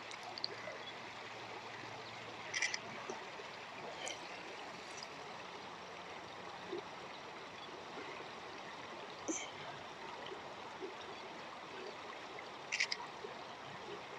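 Creek water trickling steadily, faint and even, with a few brief high-pitched blips scattered through it.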